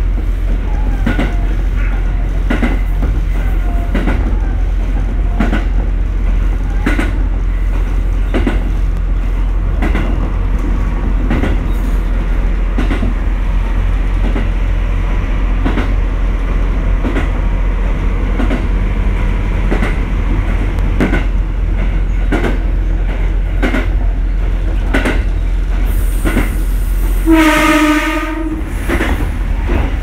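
A train running along the line, heard from inside the carriage: a steady rumble with the clickety-clack of the wheels over the rail joints. Near the end the train's horn sounds once, a single held tone lasting about a second and a half.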